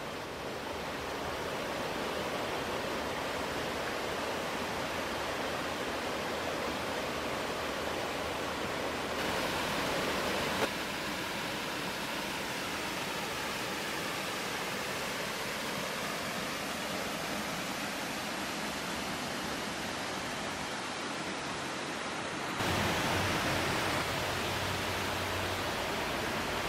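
Waterfall rushing steadily, an even wash of falling water. It gets a little louder about nine seconds in, drops back a second or so later, and steps up again a few seconds before the end.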